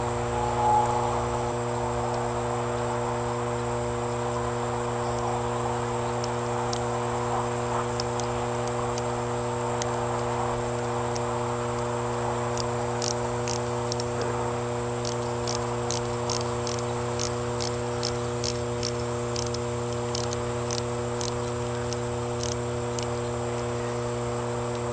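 Steady low electric hum from a running Hiblow XP-60 linear diaphragm air pump, under high, steady chirping of crickets. In the second half comes a run of light, quick metallic clicks as hose clamps on the air-hose splitter are worked with pliers.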